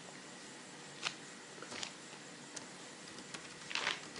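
A few scattered sharp clicks from a computer keyboard and mouse, over a faint steady hiss, with a short rush of noise near the end.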